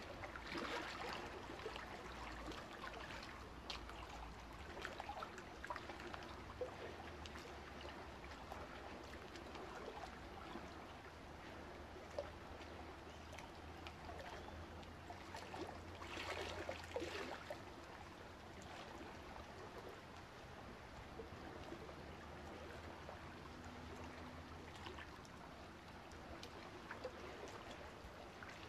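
Water trickling and splashing in a saltwater reef aquarium's circulation, with a faint low hum underneath. It swells briefly near the start and again a little past halfway.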